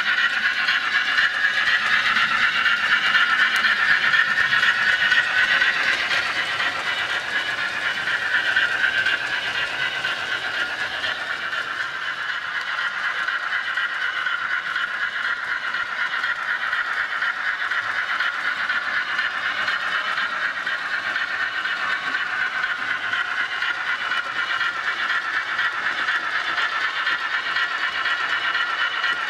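Model railway trains running on the track: a steady mechanical running noise of motor and wheels, a little louder for the first nine seconds or so.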